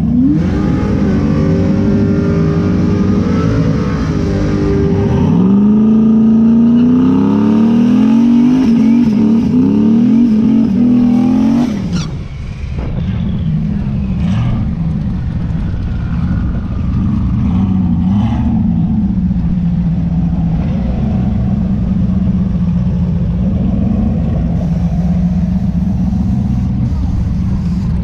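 Chevrolet S10 drag truck's engine revving hard through a burnout, its pitch climbing twice and then cutting off sharply about twelve seconds in. After that the engine runs low and steady with small blips.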